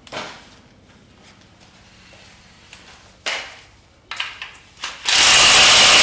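A few light metal tool clanks, then about five seconds in a pneumatic impact wrench runs in one loud continuous burst, tightening the bolt on the crankshaft balancer of a 5.3 LS V8.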